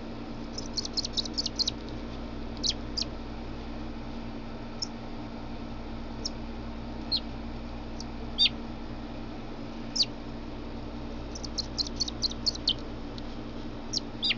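American robin fledgling calling with short, high chirps that drop sharply in pitch: a quick run of about eight near the start, single chirps scattered through the middle, and another quick run about eleven seconds in.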